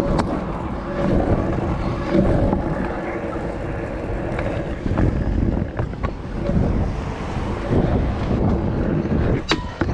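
Stunt scooter wheels rolling over wet tarmac and paving: a steady rumble and hiss, with wind on the microphone. A few sharp clacks from bumps, the loudest near the end.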